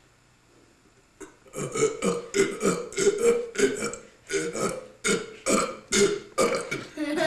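A boy belching: a long run of short belches, about three a second, beginning about a second and a half in.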